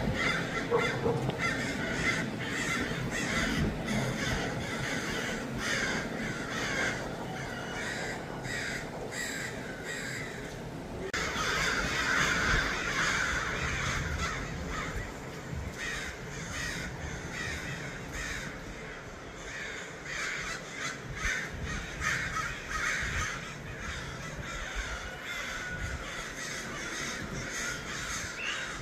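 A large flock of American crows cawing continuously, many birds calling over one another.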